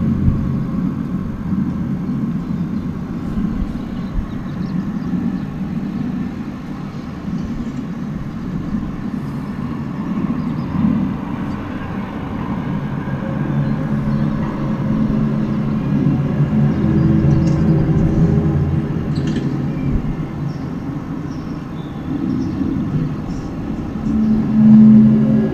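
Unexplained low droning hum heard outdoors through an open window: several low steady tones that swell and fade, getting louder near the end. It is one of the reported 'strange noises in the sky', and its source is unknown.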